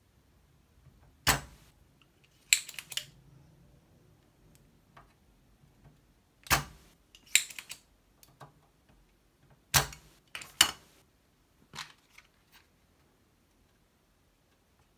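Spring-loaded desoldering pump (solder sucker) clicking and snapping as it is cocked and fired, in about three rounds with a few lighter clicks near the end: solder being sucked from the joints of transistor Q3 to take it out.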